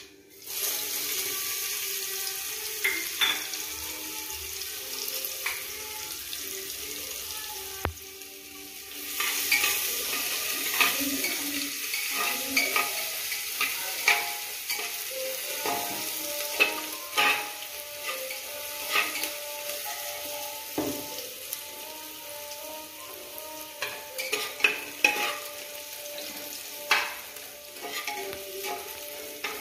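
Chopped onion sizzling in hot oil with cumin seeds in an aluminium pressure cooker. The sizzle starts about half a second in as the onion goes in and swells again around nine seconds in, while a spatula stirring the pot gives repeated sharp clicks and scrapes against the metal.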